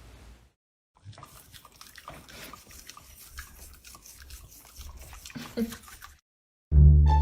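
A dog chewing, close up: irregular wet clicks and small crunching sounds with a brief pitched sound near the end. Loud plucked-string music then starts abruptly just before the end.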